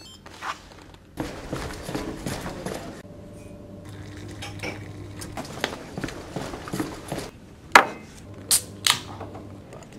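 Water running from an instant hot-water tap into a ceramic mug, then three sharp knocks near the end as a mug is set down and handled on a desk.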